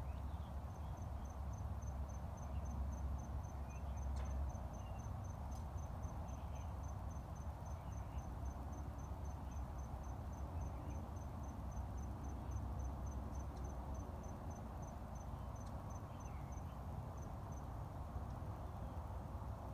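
Insect chirping: an even run of short, high-pitched pulses, about three and a half a second, stopping a couple of seconds before the end, over a steady low rumble.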